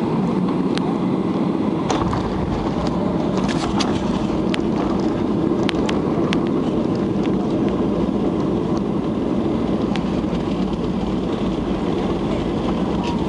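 Airliner cabin noise: a steady roar of engines and rushing air, with a few sharp rattles in the first half.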